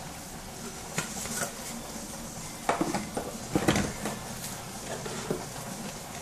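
Kitchen clatter of bottles and utensils being handled and knocked against the pot and counter, a few sharp knocks bunched about three to four seconds in. Under it is a steady hiss from a steaming pot of beef cooking in its own juices.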